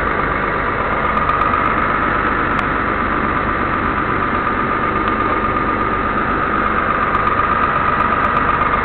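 Caterpillar 320C excavator's diesel engine running steadily, heard from inside the cab, with a steady high-pitched whine over the engine noise.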